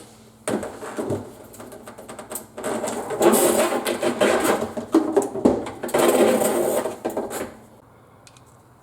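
Plastic dishwasher drain hose being handled and fed through, a run of quick rattling and scraping clicks that grows louder a few seconds in and stops near the end.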